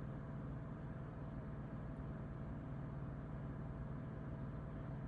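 Steady low background hum of room tone, with a few very faint ticks.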